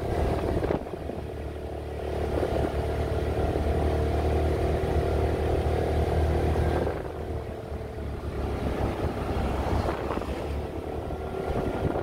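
Motor scooter engine running under way, heard from the pillion seat with wind and road noise. The engine hum grows louder about two seconds in, holds steady, then drops back about seven seconds in.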